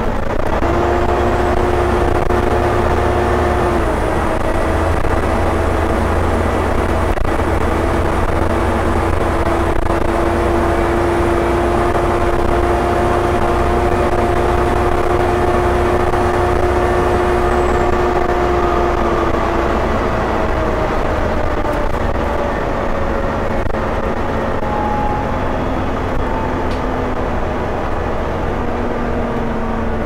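Volvo B7TL double-decker bus, with its 7-litre six-cylinder diesel, heard from inside the saloon while travelling at steady speed. There is a steady engine and road rumble with a held drivetrain whine, the 'hoover' sound, which drops in pitch a little past halfway as the bus eases off.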